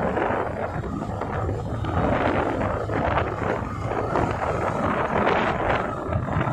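Wind buffeting the microphone of a moving motorcycle, over the bike's steady low engine and road rumble.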